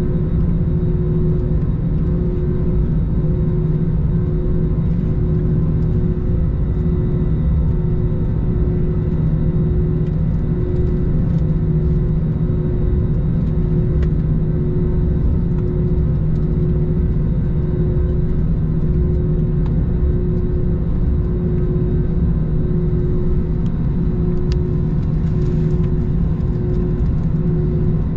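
Cabin noise of an Airbus A321 taxiing, heard from a window seat over the wing: a steady rumble from the jet engines at idle, with a low hum and a higher tone that pulses about once a second.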